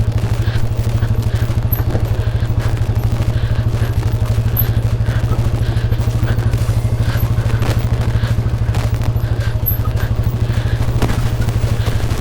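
Motorcycle engine running steadily at low revs with a fast, even exhaust beat, with a few knocks and rattles over it.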